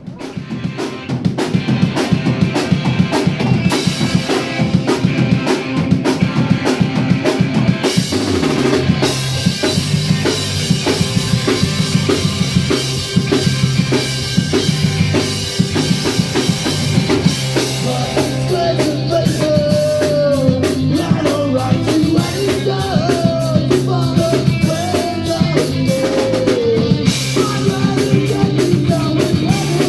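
Live punk rock band playing loud through a small venue's PA: the drum kit opens alone, then bass and electric guitar come in about eight seconds in, and a singer's voice joins a little past halfway.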